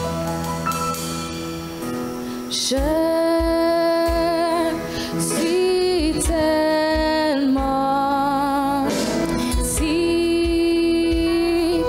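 Slow, gentle song: a soft instrumental passage, then from about three seconds in a solo female voice singing long, held notes with vibrato over the accompaniment.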